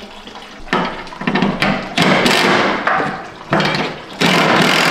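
A power tool running in several bursts, a few short ragged ones and then two longer runs, the last starting near the end.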